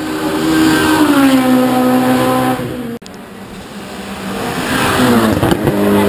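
Hill-climb race cars at full throttle passing close by, twice with a sudden break between them; each engine note climbs in loudness and drops in pitch as the car goes past.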